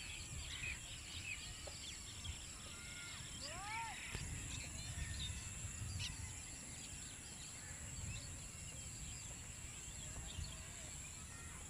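Rural field ambience: many small birds chirping and calling, with a few arching calls, over a steady high-pitched insect drone and a low wind rumble on the microphone.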